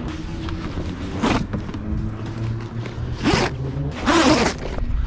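Stack pack sail cover's large plastic zip being unzipped along the boom in three long strokes: about a second in, about three seconds in, and just after.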